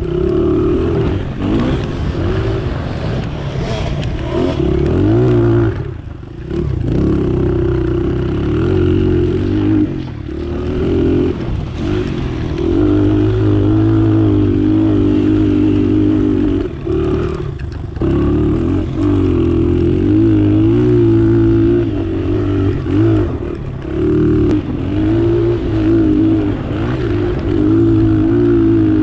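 Dirt bike engine revving hard and close by, its pitch rising and falling with the throttle and dropping off briefly a few times as the rider lets off or shifts.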